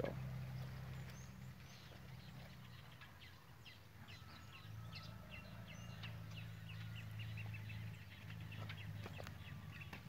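Wild birds chirping and calling in the distance: scattered short high notes, with a quick run of evenly spaced notes about halfway through, over a steady low hum.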